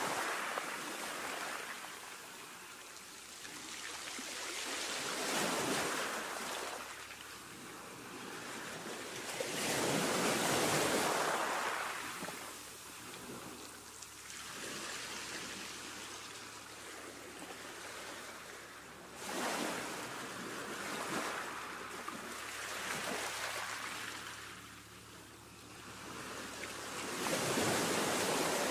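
Ocean waves washing in, a rushing noise that swells and fades every few seconds.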